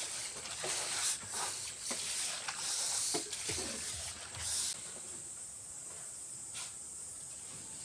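Irregular scraping and brushing strokes of mud and sand being cleared off a floor, stopping about five seconds in, over a steady high hiss.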